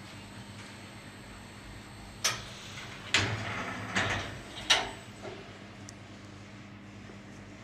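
Four sharp mechanical clacks, a little under a second apart, over a steady low hum: the moving parts of an automated tyre inspection machine at work.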